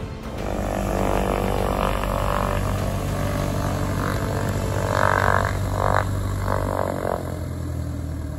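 Mooney M20 single-engine propeller plane taxiing past: its piston engine and propeller run with a steady drone that swells a few times midway.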